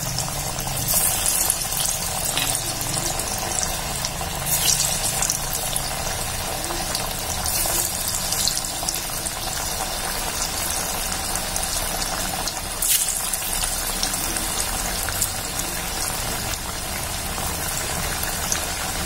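Slices of alu vadi (colocasia-leaf rolls) deep-frying in hot oil in a kadhai: a steady bubbling sizzle with a few sharp crackles now and then.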